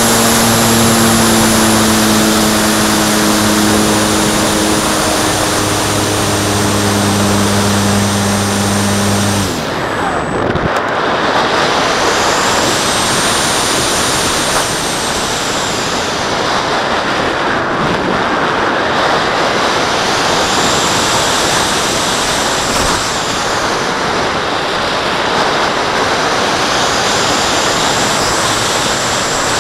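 Model glider's nose motor and propeller running with a steady hum that drops slightly in pitch, then cuts off about nine and a half seconds in. After that there is only the rush of airflow and wind on the onboard camera as the glider glides with the motor off.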